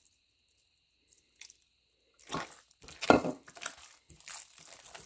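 Hand squeezing and squelching a wet raw ground-turkey meatball mixture in a glass bowl, starting about two seconds in as irregular squishy sounds, loudest around three seconds.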